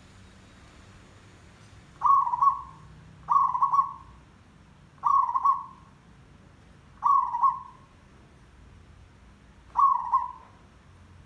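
Zebra dove cooing: five short coos at about the same pitch, the first about two seconds in, then one every one to three seconds.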